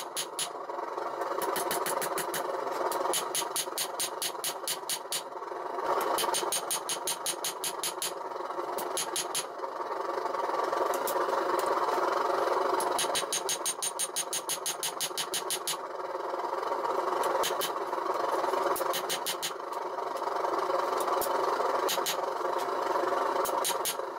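Hand hammer striking a red-hot 5160 steel blade on an anvil: rapid runs of ringing blows, several a second, broken by short pauses while the blade is turned. A steady rushing noise runs underneath.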